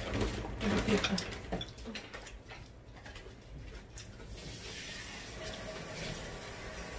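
Light clicks and taps of chopsticks and tableware against dishes and bowls, then from about four seconds in a faint steady hiss.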